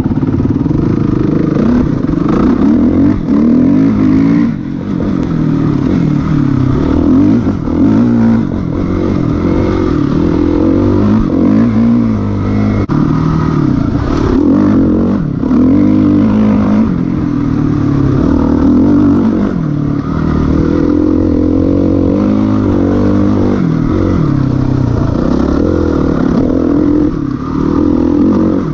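Suzuki RM-Z450 motocross bike's four-stroke single-cylinder engine heard from on board. It revs up and falls back again and again as the throttle is worked and the gears change while riding a lap.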